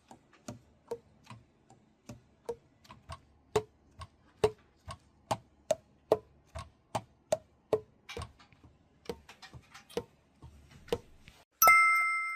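Alto saxophone keys being pressed and released without blowing, the pads clapping shut on the tone holes as a steady run of pitched clicks, about two or three a second. This is the kind of key-and-pad check done after an overhaul. A short bell-like ding sounds near the end.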